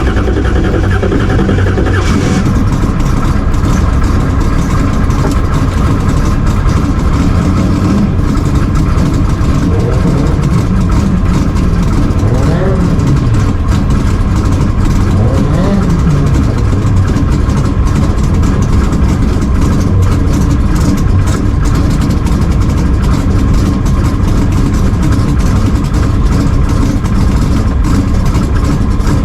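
Car engine running loudly and steadily, with faint voices underneath.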